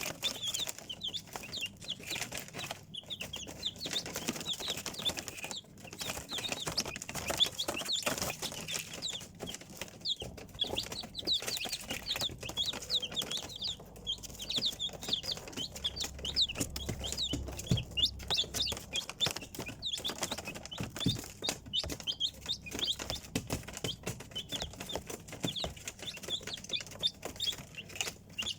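A group of chicks peeping continuously: many short, high-pitched cheeps overlapping, mixed with frequent small taps and rustles.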